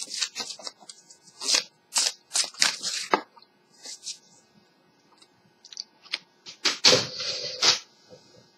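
Tarot deck being shuffled by hand: a quick run of card snaps and flaps for about three seconds, then a pause, then another short burst of card handling about seven seconds in.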